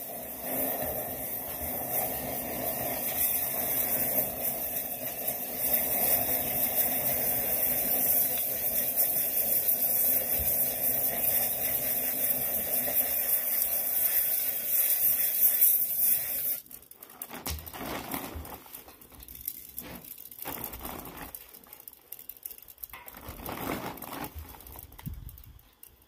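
Compressed air from a blow gun blasting into a burning raku reduction can: a loud, steady hiss and rush of fanned fire that cuts off suddenly about sixteen seconds in. It is followed by quieter, irregular crackles and rustles from the can.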